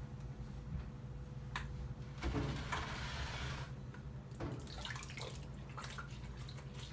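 Faint clicks and knocks of food containers being handled and set into a refrigerator, with a brief hiss a couple of seconds in, over a steady low hum.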